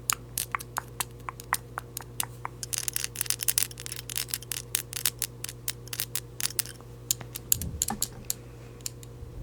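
Rapid, irregular taps and clicks close to a microphone, several a second, over a steady low hum, with a brief low rumble near the end.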